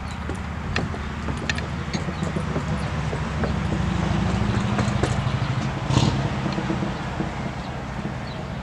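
Steady low outdoor rumble with scattered light clicks and taps, and a sharper knock about six seconds in.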